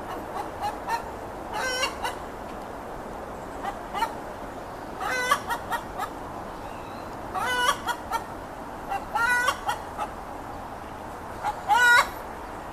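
Hen's egg song after laying: runs of short clucks, each building to a longer drawn-out squawk, about five times over, the last near the end the loudest.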